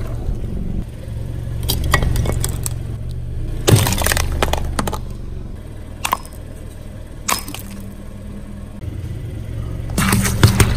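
Car tyre rolling over and crushing crunchy objects: bursts of cracking and crunching, with single sharp cracks between them, over the car's steady low engine hum.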